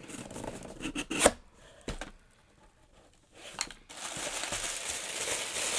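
A cardboard box is handled and opened, with a few knocks and scrapes in the first two seconds. From about four seconds in, tissue paper rustles and crinkles steadily as hands unwrap the contents.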